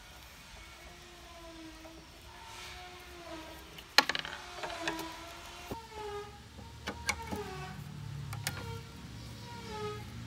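Rusted bolts on an old Honda GX160 engine squeaking and creaking as they are turned out with a socket on a long extension bar, with sharp metallic clicks from the tool, the loudest about four seconds in.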